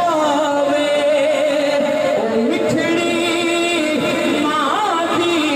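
A man singing a naat into a microphone, holding long notes that slide up and down in pitch, with no instruments heard.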